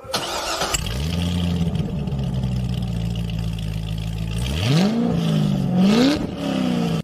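Car engine starting, settling into a steady idle, then revved up twice near the end before dropping back.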